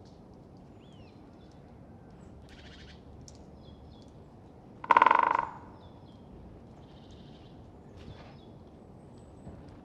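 Great spotted woodpecker drumming on an oak: one short, rapid roll about five seconds in, fading away at its end. Faint calls of other birds can be heard around it.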